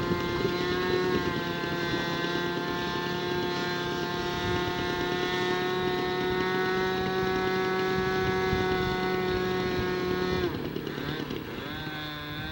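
Small engine of a radio-controlled model airplane running at a steady high pitch, then cutting out abruptly about ten seconds in: the engine quitting in flight, leaving the plane dead stick.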